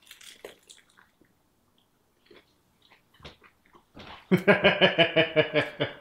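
Crunchy bite into deep-fried French toast and apple pie and quiet chewing, then from about four seconds in a man's loud, rhythmic chuckling with his mouth full, pulsing several times a second.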